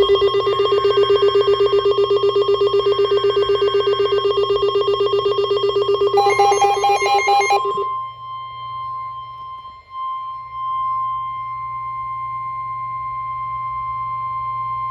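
Emergency Alert System tones for a severe thunderstorm warning. A loud, rapidly pulsing ringing alarm runs with short warbling data bursts over it and stops about eight seconds in. From there a single steady weather-radio alert tone sounds on its own.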